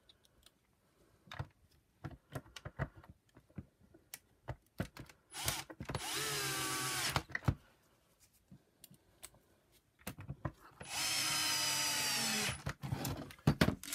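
Cordless drill-driver running twice, each time for about a second and a half, driving screws back into a Shark NV602UK power nozzle's plastic housing; each run is a steady whine that drops in pitch as it stops. Light clicks and knocks of the parts being handled come between the runs.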